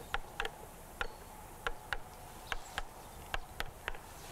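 Wooden mallet striking the handle of a wood-handled carving chisel as it cuts into a log: about a dozen sharp knocks, often in quick pairs.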